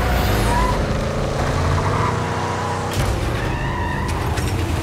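Engine of a Chevrolet Silverado off-road pickup truck running as it drives, a steady low rumble.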